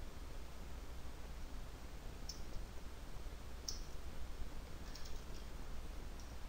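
A few faint computer keyboard keystrokes, single clicks and a short run near the end, over a steady low electrical hum.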